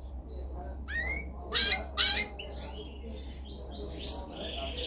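Domestic canary singing: upward-sweeping notes, two loud harsh notes and a sharp high one in the middle, then a run of quick repeated syllables that runs into a buzzing trill near the end. A low steady hum runs underneath.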